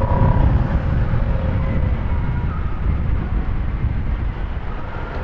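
Honda Click 150i scooter's single-cylinder engine running while riding, under a heavy low wind rumble on the microphone. The sound gets slightly quieter toward the end.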